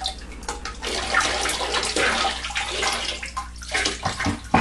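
Liquid pottery glaze splashing and sloshing in a bucket as a platter is dipped into it and drawn out, with a sharp knock near the end.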